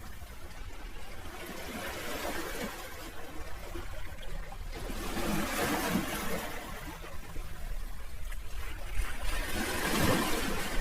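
Sea waves washing in, swelling and fading about every four seconds, over a steady low rumble.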